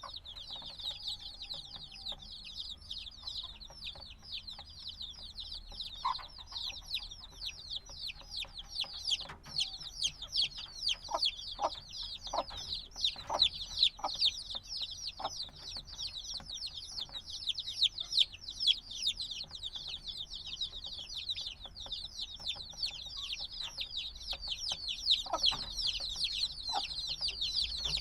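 A brood of newly hatched baby chicks chirping, many short, high, falling peeps overlapping in a constant stream, with the odd lower call among them. The chicks are a few days old and still want the warmth of their mother.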